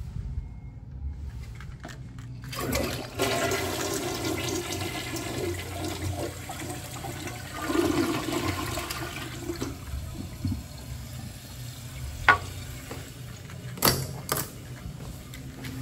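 A tank toilet flushing: water rushes into the bowl about two and a half seconds in, surges loudest around the middle, then drops to the quieter hiss of the tank refilling. Near the end come a few sharp metal clicks from a stall door latch.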